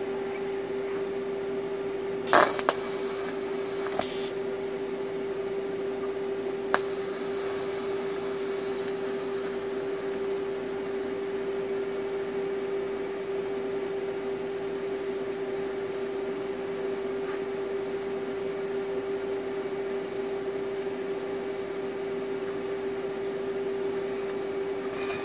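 AHP Alpha-TIG 200X TIG welder over a steady hum. The arc strikes with a sharp crackle about two seconds in, hisses and breaks off a couple of seconds later, then strikes again with a click near seven seconds and holds as a faint steady hiss while the torch welds. The welder reckons the current was a little too hot.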